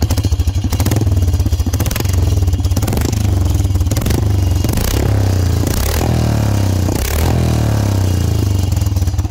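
Royal Enfield Bullet Electra's single-cylinder engine running with its silencer removed, an open pipe with a loud, rapid, pulsing exhaust note. The throttle is blipped several times, so the revs rise and fall.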